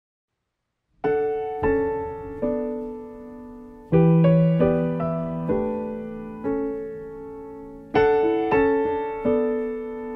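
Slow solo piano playing the opening of a soft love song: chords struck and left to ring and fade, entering after about a second of silence.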